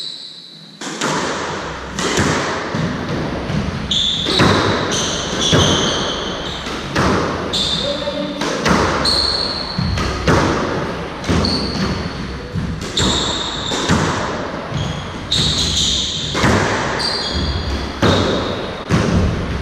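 Squash rally: the ball is struck by rackets and hits the walls in a string of sharp impacts, while sneakers squeak briefly and often on the wooden court floor. It starts about a second in.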